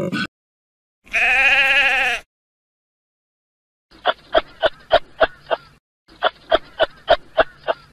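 Animal calls: one loud, wavering, bleat-like call about a second in, then two runs of short, clicking calls repeating about three times a second.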